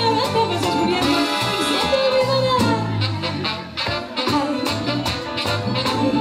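Live Latin dance band playing at a quick, steady beat, with a woman singing lead into a microphone over horns, keyboard and percussion.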